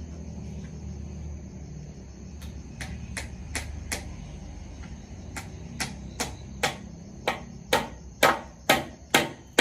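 Repeated hammer blows: about fifteen sharp strikes, starting a couple of seconds in, coming roughly every half second in uneven pairs and growing louder toward the end, over a steady low hum and a thin high drone.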